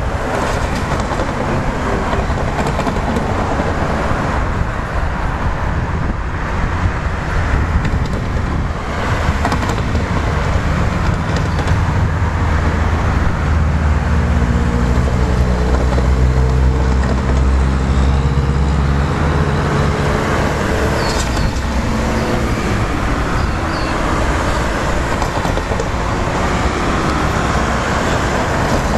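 Queensland Rail Tilt Train approaching over steady rumbling running noise. A deeper hum with a few faint steady tones swells about halfway through, then eases off.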